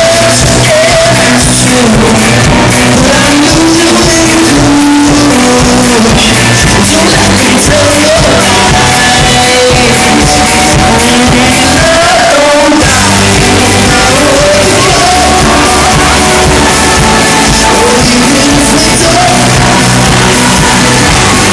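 A live rock band playing loud over a concert sound system, with a lead vocal singing the melody over guitars and drums, heard from the audience.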